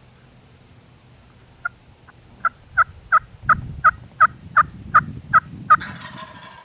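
A turkey yelping: a series of about eleven short, even notes, roughly three a second, that start softly and grow louder before stopping near the end.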